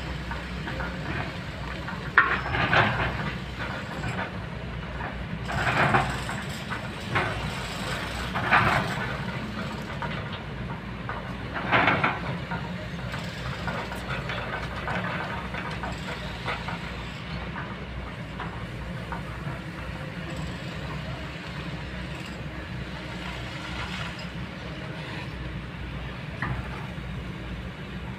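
Kobelco long-reach excavator working, its diesel engine running steadily under a low drone, with rushing noises about a second long every few seconds in the first half as the boom and bucket move.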